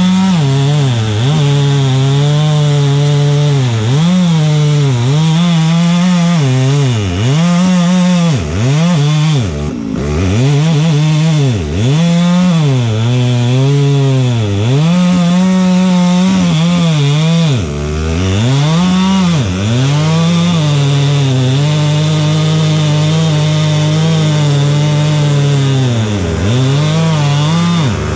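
Chainsaw running hard while cutting wood. The engine speed drops sharply and picks up again every second or two, then holds steady for several seconds near the end.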